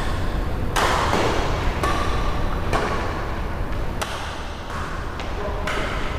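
Badminton rackets striking a shuttlecock back and forth in a rally: several sharp smacks about a second apart, the loudest trailing a short echo.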